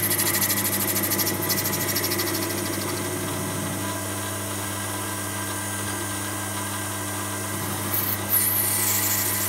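Small metal lathe running with a tungsten carbide insert taking a quick cut on a brass bar: a steady motor hum under a high hissing cutting sound, strongest for the first few seconds and again near the end.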